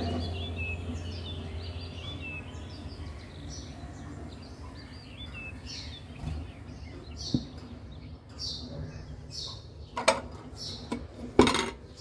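Cockatiels chirping softly in short calls, with a couple of sharp clattering knocks near the end.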